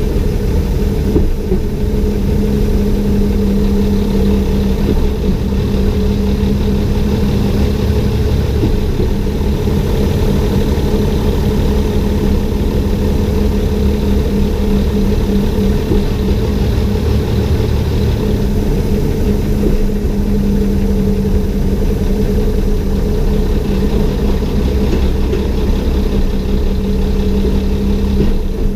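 Engine of a vintage railbus running steadily as the railcar rolls along the track, an even hum throughout.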